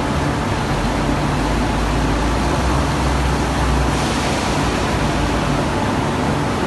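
Forklift and furnace-shop machinery running: a loud, steady rush of noise over a low hum, with a deeper rumble that swells between about one and a half and four seconds in.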